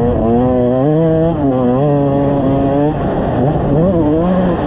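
Kawasaki KX125 two-stroke dirt bike engine under way, holding high revs with small wavers in pitch. About three seconds in the throttle is chopped and the pitch drops, followed by quick rev blips rising and falling.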